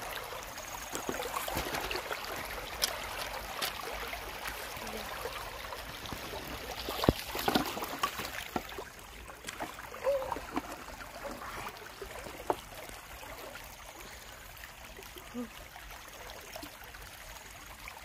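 Shallow river water flowing and trickling steadily, with a few sharp knocks and clatters of bamboo sticks being handled and dropped into a plastic tub.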